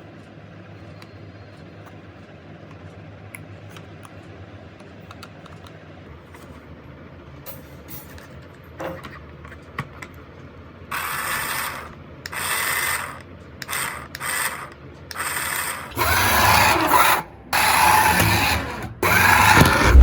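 Toy RC car's small electric motor and plastic gears whirring in short on-off bursts as the throttle is worked. The bursts begin about halfway through and grow louder and longer near the end.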